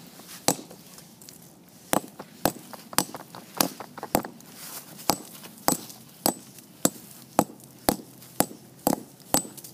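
Steel claw hammer repeatedly striking pieces of red brick on a wooden timber, crushing them toward powder. A steady run of sharp knocks, about two a second, some with a short high ping.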